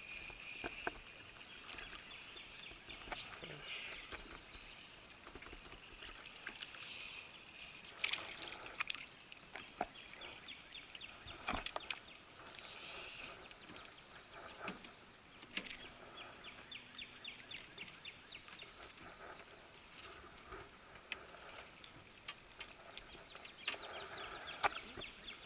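Light clicks and knocks of a crappie being landed and handled in a small fishing boat, with faint water dribbling. A faint rapid high ticking comes and goes.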